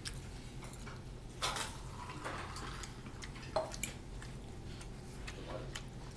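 Metal fork clinking and scraping against a ceramic plate, a few scattered clicks, while noodles are eaten.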